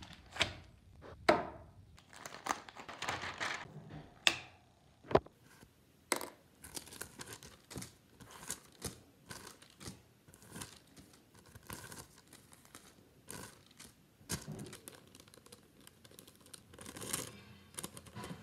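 Thin translucent paper crinkling and rustling as it is handled, folded and creased by hand, in many short irregular crackles. A few sharp, louder snaps or taps come in the first few seconds.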